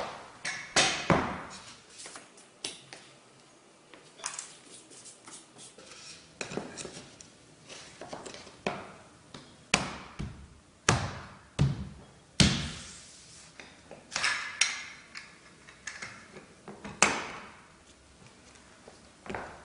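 Irregular knocks, taps and short scrapes as a Parky floorboard and hand tools are handled, laid down and worked on a hard floor while the board is fitted into place.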